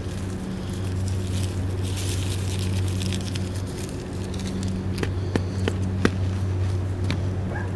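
Crackers crunching and crackling under the soles of leather dress boots, with a few sharp snaps about five to six seconds in, over a steady low hum.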